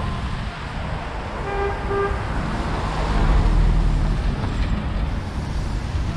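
Street traffic running steadily past, with a vehicle horn giving two short toots about a second and a half in. A passing vehicle's low rumble swells a few seconds later.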